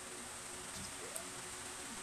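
Quiet eating at a table over a steady background hiss, with one light click a little after a second in.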